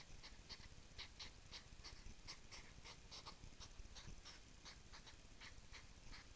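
Hedgehogs huffing during courtship: a run of short, sharp puffs, about three a second.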